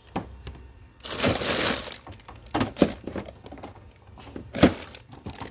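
Plastic Lego-baseplate tabletop of a kids' table being handled and flipped over. There is a rustling clatter of plastic about a second in, then a few sharp hollow plastic knocks, the loudest near the middle and toward the end, as the top is set back in place.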